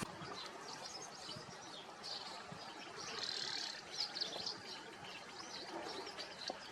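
Small birds chirping in short, high-pitched bursts, in several clusters, the loudest a little past the middle.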